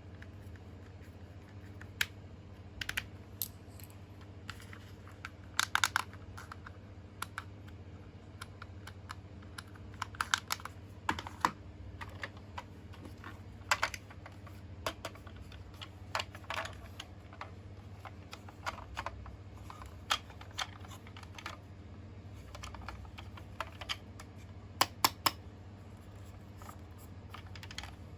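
Plastic toy and packaging being handled: irregular light clicks and taps, singly and in short clusters, over a steady low hum.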